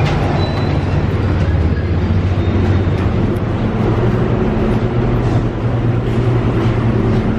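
Buenos Aires Premetro light-rail tram running, heard from inside the car: a steady low hum over rolling noise.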